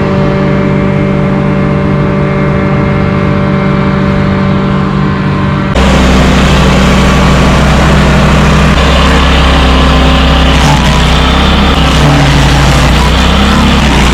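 A machine engine running steadily at a constant pitch, then about six seconds in the sound switches abruptly to a louder, rougher engine with a heavy low rumble.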